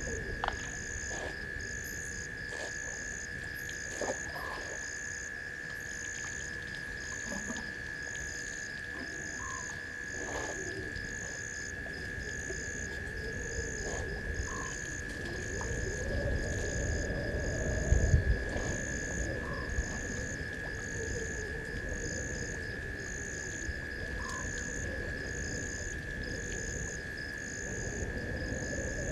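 Night chorus of frogs and insects: a continuous high-pitched drone, a faster regular pulsing above it, and a short call repeated about every five seconds. Partway through comes a louder low rumble and rustling with one heavy thump, from the elephants moving among dry branches at the water.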